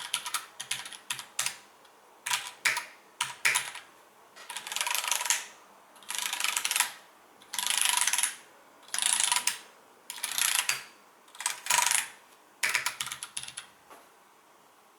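Mechanical keyboard being typed on: separate keystrokes at first, then from about four seconds in, quick runs of rapid keypresses about a second long, repeating every second and a half, stopping near the end.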